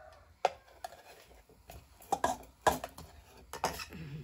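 Scattered clinks and knocks of dishes and cutlery, a few short separate strikes, some with a brief ring.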